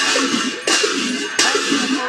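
Segro Sili ritual dance music: a sharp, ringing percussion stroke about every 0.7 seconds, with voices chanting underneath.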